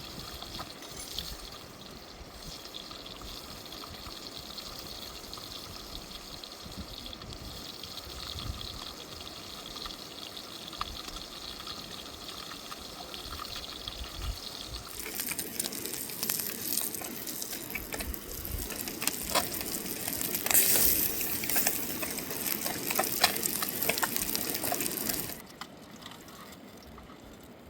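Running water: a steady rush of flowing water, then, about halfway through, louder splashing and pouring water with many small clicks, which stops abruptly near the end.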